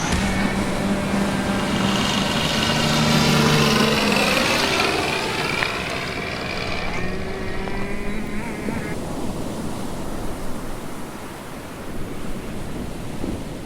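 Electric motors and propellers of a radio-controlled aircraft whining, several pitches sliding up and down for the first nine seconds or so, then fading into a steady rushing noise.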